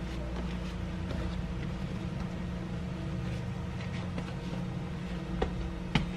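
A steady low mechanical hum, like a household appliance running, with two short knocks near the end.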